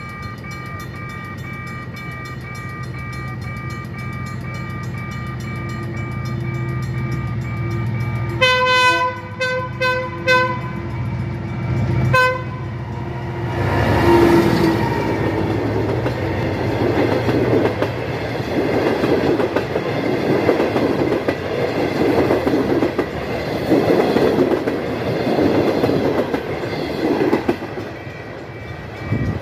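A train approaching with a low rumble that builds. There are four short horn blasts about eight to ten seconds in and one more soon after. The train then passes close by for about fifteen seconds with loud rushing and clattering wheels, dying away near the end.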